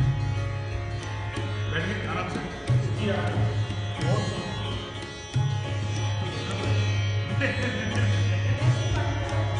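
Sitar and tabla playing together: a sitar melody with sliding notes over the strokes of a handmade Qasim Khan Niyazi & Sons tabla pair.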